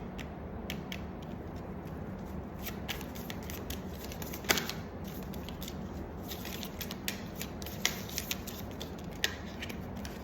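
Tarot cards being shuffled and handled, a string of short, crisp card clicks and snaps at an irregular pace, the sharpest about halfway through, over a steady low hum.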